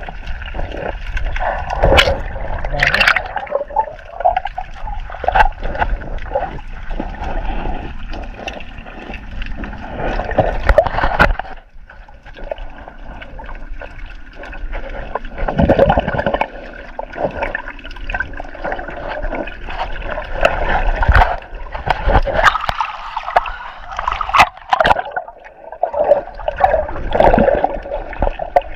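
Muffled water sloshing and gurgling around an underwater camera near the surface, with bubbling and sharp clicks scattered through it.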